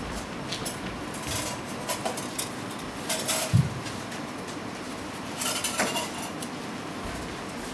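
Scattered light clicks and knocks from people handling an upturned plastic stool and shifting around it, with one louder low thump about halfway through.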